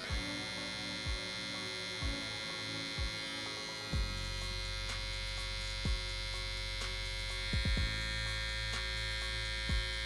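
TCMKY TX768 hair clipper running, a steady electric hum, with soft low thumps about once a second.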